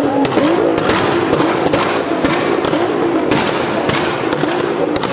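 Nissan GT-R exhaust crackling and popping on the overrun just after the throttle is released: irregular sharp pops and bangs, several a second, over the engine's settling note.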